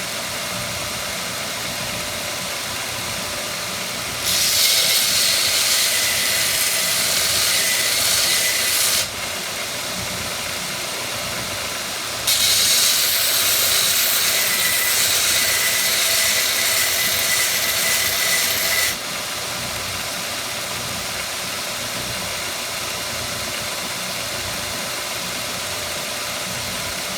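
Electric knife grinder's motor running steadily. Twice a blade is held to the grinder for a long pass, each bringing a loud, high, hissing grind over the hum; the second pass is longer.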